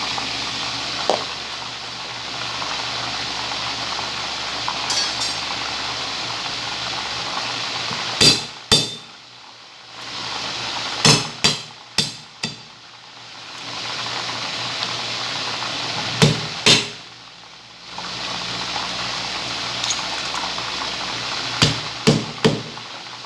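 Kitchen knife striking a thick wooden chopping board in short groups of two or three sharp knocks while chopping garlic, over a steady hiss of chicken wings frying in oil.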